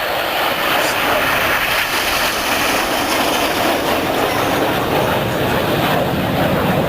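Formation of BAE Hawk T1 jets with Rolls-Royce Adour turbofan engines passing low in front of the crowd, a loud steady jet roar.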